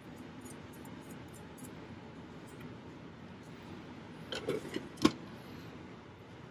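Low steady room noise, then about four seconds in a brief rattle and a sharp click as the sliding glass draft-shield door of an analytical balance is pushed shut.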